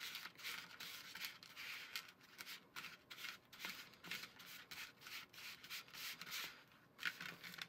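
Rubber spatula scraping and mashing shortening against the side of a small plastic mixing bowl: a faint, rapid series of short, gritty rubbing strokes.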